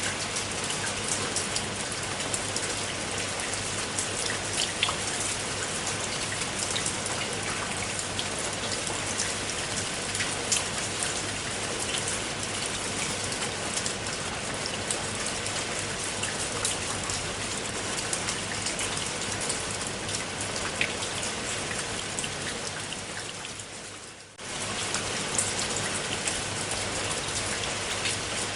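Steady rain falling on a surface, with scattered sharp drop hits standing out from the even hiss. About 23 seconds in it fades down briefly, then returns abruptly at full level.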